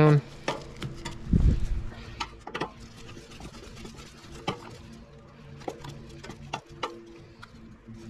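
Screwdriver turning a screw into sheet-metal parts inside a microwave, with small scattered metallic clicks and scrapes, and a dull thump about a second and a half in.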